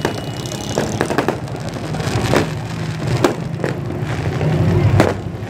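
Aerial fireworks bursting: about five sharp bangs at irregular intervals, the strongest near the end. Under them runs the steady drone of passing road traffic.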